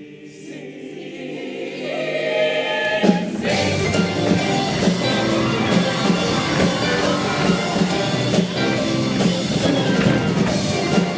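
Show choir and its live band: a soft held chord swells for about three seconds, then the full band comes in with a steady drum beat.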